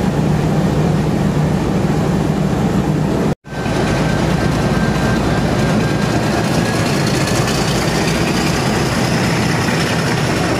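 Diesel train engine running very loudly beside the platform, a steady heavy drone with a deep hum. The sound drops out for an instant about three seconds in.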